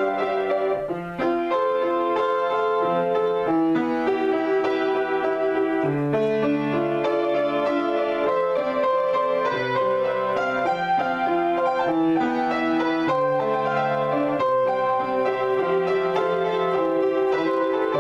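Solo piano improvisation: sustained chords with a melody over them, changing every second or so, with a brief drop in loudness about a second in.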